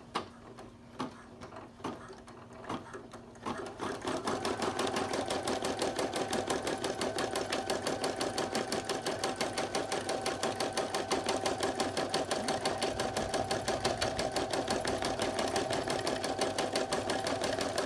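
Computerised embroidery machine running a double tack-down stitch, which goes around twice to hold the appliqué fabric down. A fast, even needle rhythm starts about four seconds in, after a few light clicks.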